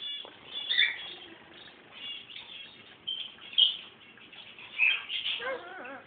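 Caged green parrot making short, scattered chirps and squawks, with a longer wavering call near the end.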